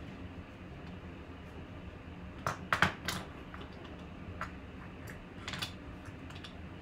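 A few light clicks and taps over a steady low hum, the loudest a quick cluster about two and a half to three seconds in and a couple more about five and a half seconds in.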